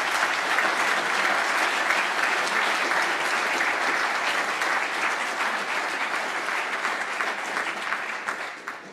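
Audience applauding, a dense steady clapping that tapers off and dies away near the end.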